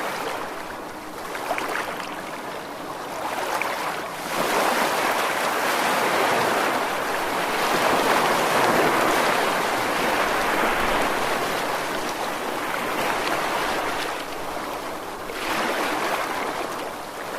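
Rushing water in a continuous wash with no distinct splashes. It swells about four seconds in, stays loud through the middle and eases back near the end.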